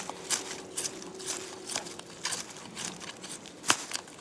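Fixed-blade knife carving down into a hard, dead wooden stick: a run of short scraping cuts, about two a second, with one sharper snap near the end.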